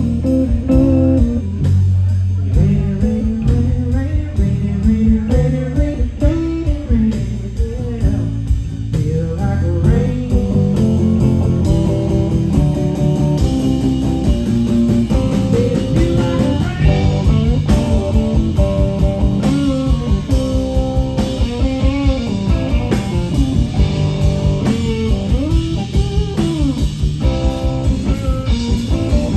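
Live blues band playing: a Telecaster-style electric guitar plays lead lines with bent notes over electric bass and a drum kit keeping a steady beat.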